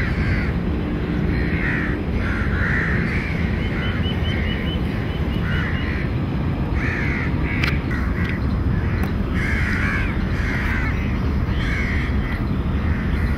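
Crows cawing, about a dozen harsh calls scattered through, over a steady low rumble. A short run of quick, high chirps from another bird comes a few seconds in.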